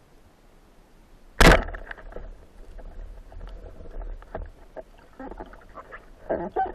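A band-powered 90 cm speargun fired underwater about a second and a half in: one sharp, loud crack. Scattered clicks and knocks follow from the shaft and line, with a denser cluster near the end.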